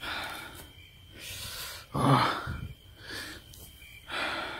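A man breathing hard from the exertion of climbing a steep slope, a heavy breath about every second, the loudest about two seconds in.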